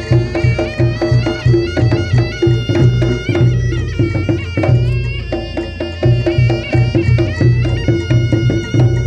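Reog gamelan music: a reedy shawm (slompret) plays a wavering, ornamented melody over a quick, even beat of drums and gongs.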